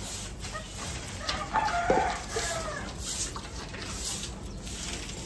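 A rooster crowing once, a drawn-out call about one and a half seconds in.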